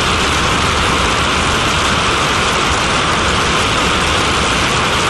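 VK-1 turbojet engine of a TMS-65 decontamination truck running steadily, its exhaust blasting out a dense white cloud of vapour: a loud, even rushing noise that holds without change.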